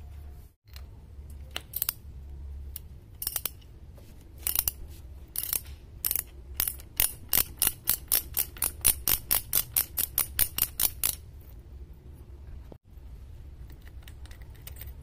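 Ratchet wrench turning a spark plug socket on a motorcycle's air-cooled engine: a few scattered pawl clicks, then a fast even run of about four clicks a second for some five seconds that stops abruptly.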